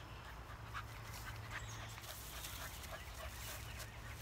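Small dog whining and yipping faintly in short, high calls, excited to have its owner back.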